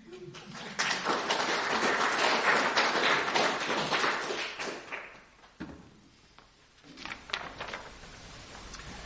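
Audience applauding for about four seconds and then dying away, followed by a few scattered knocks and taps.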